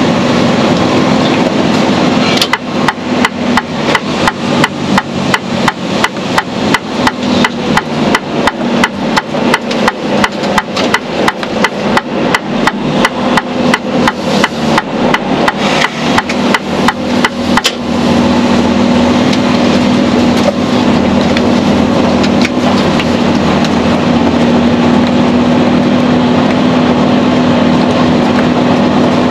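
Turn-signal indicator ticking inside a Mercedes-Benz Actros truck cab, an even tick about three times a second over the running diesel engine while signalling a turn. The ticking starts a couple of seconds in and stops suddenly after about fifteen seconds, leaving the steady engine drone.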